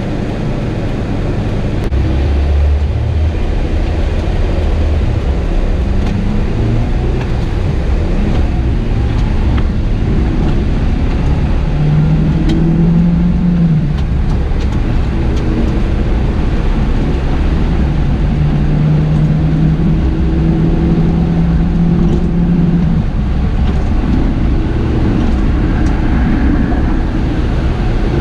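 Car interior noise while driving: a steady low rumble of engine and road, with a hum that holds a pitch for a few seconds at a time.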